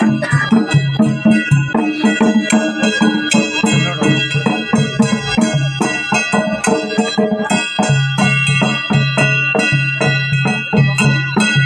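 Traditional Himachali folk procession music: drums beating a fast, steady rhythm under sustained wind-instrument tones.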